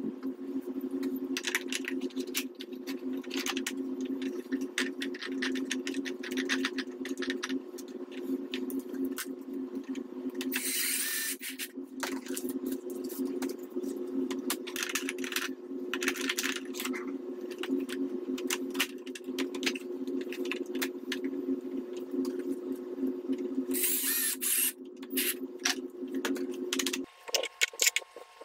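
Hard plastic clicks, taps and clatter of 3D-printed gears, shafts and hubs being handled and slid into place in a model tank's gearbox, with two brief scraping sounds. A steady low hum with two tones runs underneath and stops shortly before the end.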